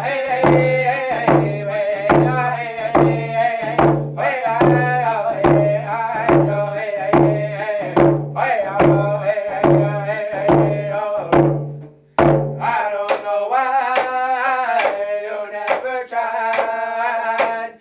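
Two male voices singing a round dance song over hand-held frame drums struck with beaters in a steady beat of about two and a half strokes a second. About twelve seconds in, the drums and voices stop for a moment, then the singing resumes with lighter drumming.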